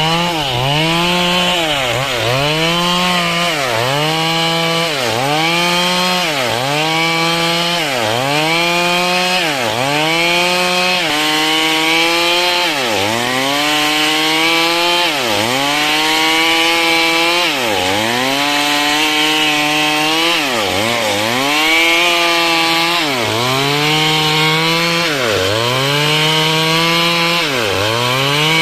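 Stihl chainsaw cutting dry timber, its engine pitch dropping under load and climbing back about every two seconds as the bar is worked through the wood in repeated strokes.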